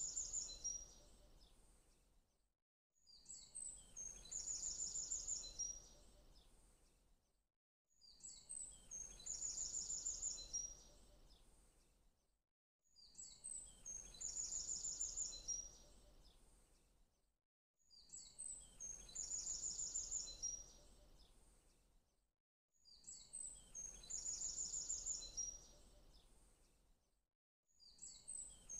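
Faint birdsong on a loop: the same short phrase of high chirps ending in a quick trill repeats about every five seconds, with a brief gap between repeats and a low hum underneath.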